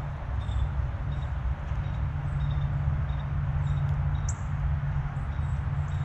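A steady low rumble with a humming undertone, the loudest sound. Over it, faint high bird chirps come now and then, with a brief higher note about four seconds in.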